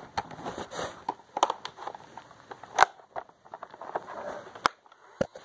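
Plastic clicks and knocks of a Nerf blaster being handled, irregular, with two louder snaps: one about three seconds in and one near the end.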